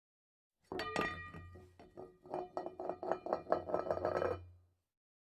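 A quick run of clinks and knocks, each leaving a ringing tone, over a low hum. It starts about a second in, speeds up to several strikes a second, and cuts off suddenly near the end.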